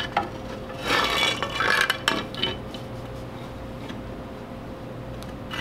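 Small steel parts and a hand tool clinking and jingling as they are handled on a hot rod's front axle spindle and steering arm, busiest for about a second starting a second in. A faint steady hum runs underneath.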